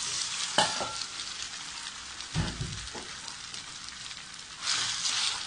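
Marinated boneless chicken pieces sizzling as they hit hot oil in a nonstick pan. A sharp knock comes about half a second in and a dull thump midway, and the sizzle swells again near the end.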